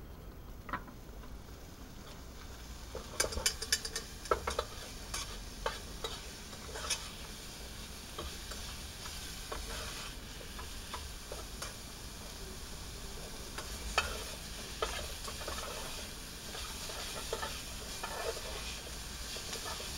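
Diced bacon frying in a metal pot on a portable gas cartridge stove, sizzling more strongly from about three seconds in. Now and then a utensil clicks and scrapes against the pot as the bacon is stirred.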